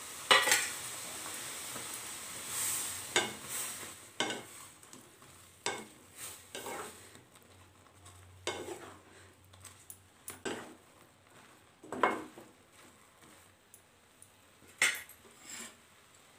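Metal spatula stirring bread pieces in a kadai of boiling milk. A sharp knock comes at the start, with a bubbling hiss that fades over the first few seconds, then scattered scrapes and knocks of the spatula against the pan.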